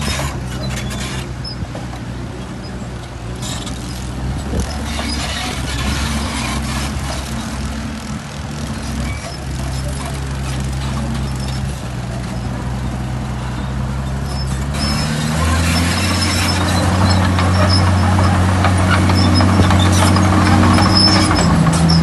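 Heavy earthmoving machine's diesel engine running steadily, then loading up about fifteen seconds in with a deeper, louder note and a scatter of rattles and clatter over it.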